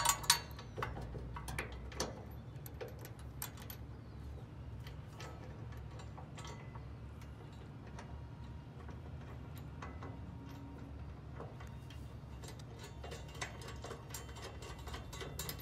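Irregular metal clicks and taps of bolts, washers and nuts being fitted by hand into a steel bracket, with the sharpest clicks right at the start, over a steady low rumble.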